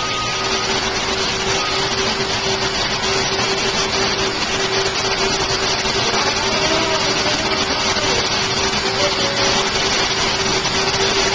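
Vacuum cleaners running steadily as soot is vacuumed up after a fire: an even noise with a constant hum through it.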